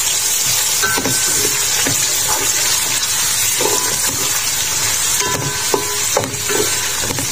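Sliced onions frying in hot oil in a metal pot: a steady sizzle, stirred now and then with a wooden spoon. The onions have just gone in and are softening.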